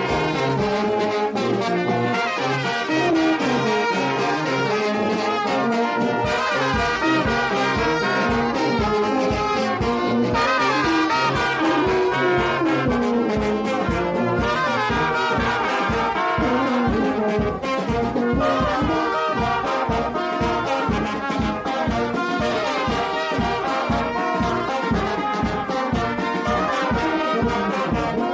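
Brass band with trumpets playing a lively tune in several parts, with a regular beat underneath that grows heavier about six seconds in.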